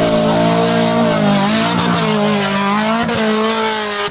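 Car engine revving hard and held at high revs, its pitch wavering slowly up and down.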